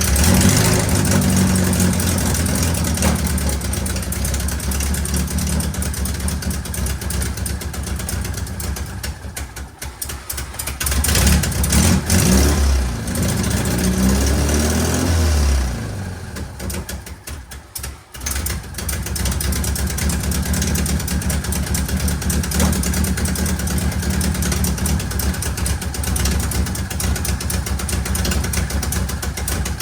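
Car engine running steadily. About halfway through, its pitch rises and falls once, then it settles back to a steady run after a short lull.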